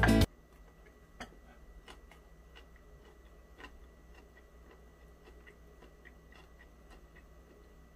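Background music cuts off at the start. Then come faint, irregular small clicks and scrapes of a wooden spoon scooping fried rice in a plastic meal tray, a few a second.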